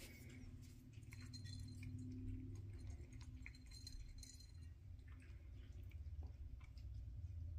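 A cat eating dry kibble from a bowl: faint crunching and light clinks against the bowl, over a low steady room hum.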